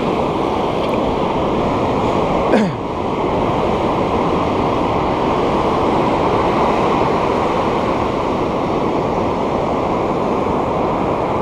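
Ocean surf washing on the beach with wind on the microphone, a steady rush of noise. About two and a half seconds in, a brief sound glides quickly down in pitch.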